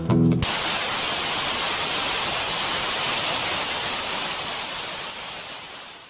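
Blues guitar music breaks off about half a second in and gives way to a steady hiss of television static (white noise), which fades out near the end.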